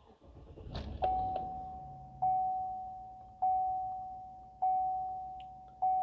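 Dashboard warning chime of a 2017 Chevrolet Silverado 1500 dinging five times, about once every 1.2 seconds, each ding fading out. Under it, the truck's 5.3-litre V8 starts with a short low rumble about a second in, then idles quietly.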